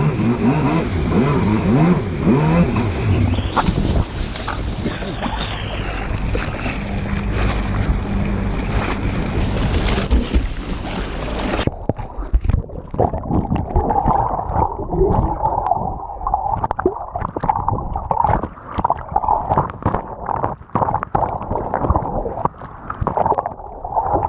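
Jet ski engine running hard through rough water and wind beside a ship's hull, with loud rushing spray. About halfway through the sound cuts to a muffled, crackling gurgle of bubbling water as the camera goes under.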